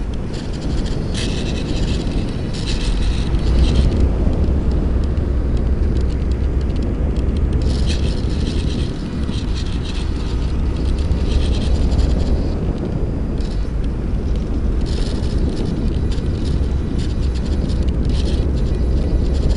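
Onboard sound of a HobbyZone Champ ultra-micro electric RC airplane in flight: air rushing over the tiny onboard camera's microphone as a steady low rumble. A higher whine comes and goes every few seconds.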